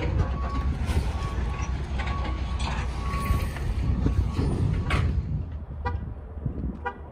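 Steady low rumble of idling trucks with faint, intermittent short beeps. After about five seconds it drops quieter, and two short horn toots come about a second apart.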